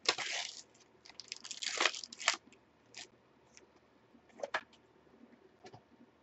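Trading-card pack wrapper crinkling and tearing as a pack is opened by hand, loudest in the first couple of seconds, followed by a few short rustles and taps as the cards and wrappers are handled.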